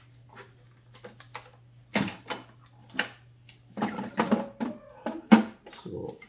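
Clicks and clacks of the metal toggle latches and bellows housing of a Dräger Fabius GS anesthesia machine being unclipped and lifted off: a few separate knocks, then a quick cluster, the sharpest about five seconds in.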